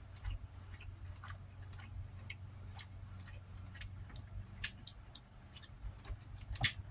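Irregular soft clicks and smacks of someone eating close to the microphone, over a faint steady low hum.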